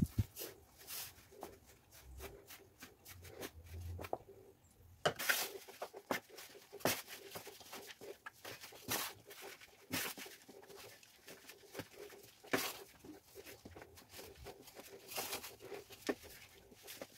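Hands mixing and kneading crumbly flour-and-water dough in a metal bowl: irregular crackling rustles and sharp clicks as the dry, shaggy dough is squeezed and pressed against the bowl.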